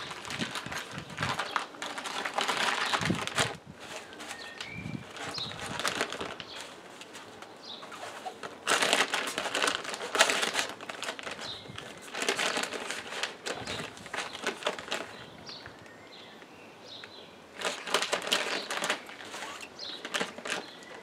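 A plastic pouch crinkling and rustling in bursts as gear is handled and packed into it and into a fabric backpack, with faint bird chirps in between.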